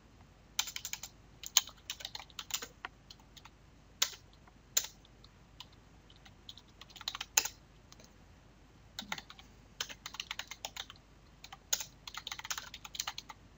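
Computer keyboard typing: quick runs of keystrokes with short pauses between them, and a pause of about two seconds near the middle.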